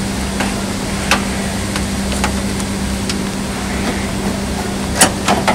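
Car bonnet being unlatched and raised: a few light clicks and knocks, then a sharp metallic click about five seconds in, over a steady low mechanical hum.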